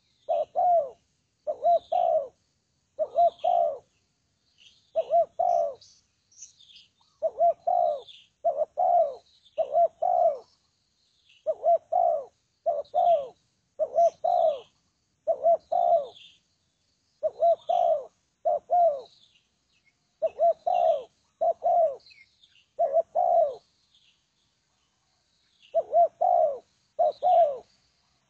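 Spotted dove (tekukur) cooing: short, mellow coos repeated in phrases of two or three notes, with a longer pause a few seconds before the end.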